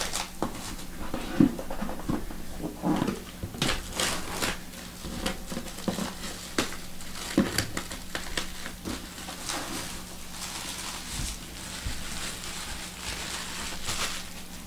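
Plastic shrink wrap being picked at and peeled off a cardboard trading-card box, crinkling and crackling irregularly, with softer rustling near the end.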